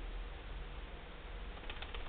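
Hot glue gun and popsicle sticks being handled: a steady low hiss with a few faint light clicks near the end.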